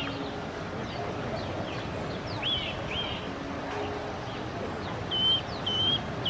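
Birds calling over a steady background hiss: a few separate whistled notes that swoop up and down, then a quick run of short repeated chirps near the end.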